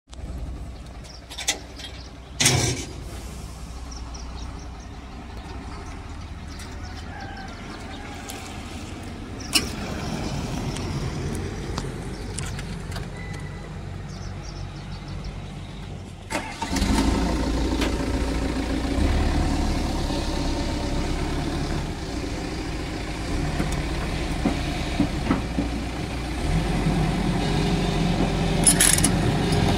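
XCMG XE135B excavator's diesel engine starting up a little past halfway through, then running steadily at idle. Before it starts there is only a low hum and a few sharp clicks.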